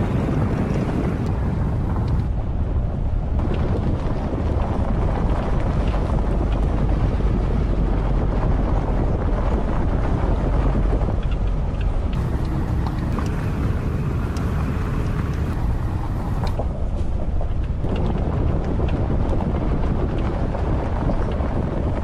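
A SsangYong Rexton SUV driving slowly over a gravel track, a steady low rumble mixed with wind buffeting on a camera microphone mounted outside the vehicle.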